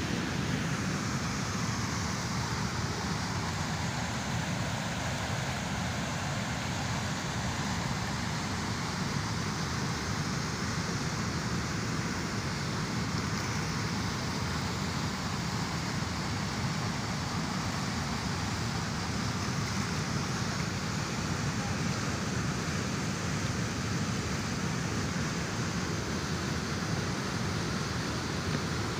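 Steady rushing of water pouring out of the dam's outlet chute and over its concrete lip into foaming white water, an even noise with no breaks.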